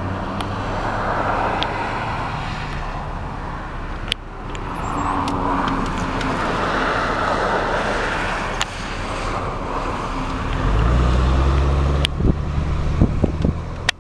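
Car engine and road noise heard from inside a moving car, steady, with a few sharp knocks. For the last few seconds the engine's low hum is much louder.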